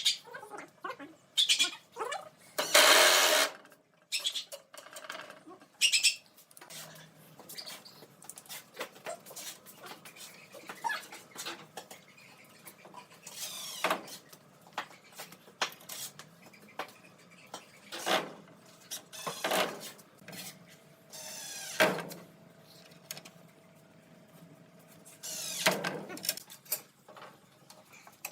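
Woodworking sounds: irregular knocks and clicks of wooden parts and tools being handled, with a few short louder noisy bursts about three seconds in and near the end.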